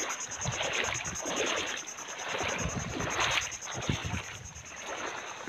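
Footsteps wading through shallow water and soft mud, with a splashing swish about once a second and a few low thumps.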